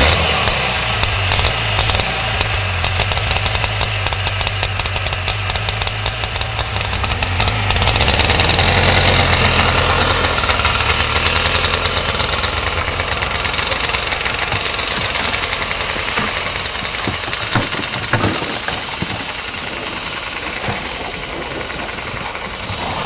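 Snowmobile engine catching and running, then getting louder from about eight seconds in as the machine drives off, and slowly fading after that.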